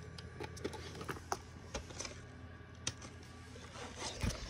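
Faint scattered clicks, taps and rustles of handling over a low steady hum, with a slightly louder low thump about four seconds in.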